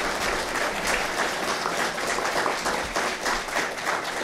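Audience applauding: many hands clapping together in a dense, steady patter of claps.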